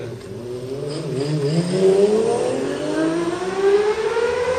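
Honda CBX1000 inline-six with a modified exhaust accelerating, its note climbing steadily in pitch as it pulls through the revs.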